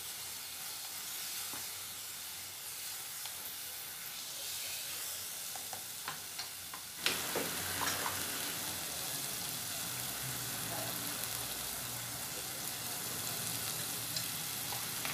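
Onion-tomato masala sizzling steadily as it fries in a non-stick pot, with the scrape of a spatula stirring it and a few light taps about halfway through.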